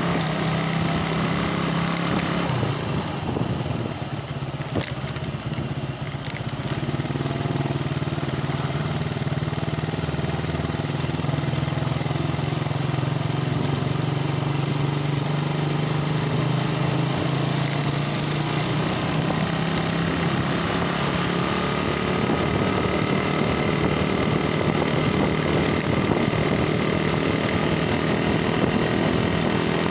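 Suzuki Raider motorcycle's engine running while under way, a steady low engine note with wind rush over the microphone. The engine eases off briefly about four seconds in, then picks up again, its pitch climbing a little near the end.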